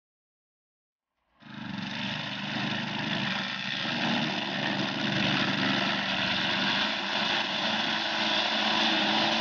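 Silence, then about a second and a half in the 4.8 hp engine of a wheeled string trimmer starts sounding abruptly and runs steadily at working speed while its nylon line cuts tall grass.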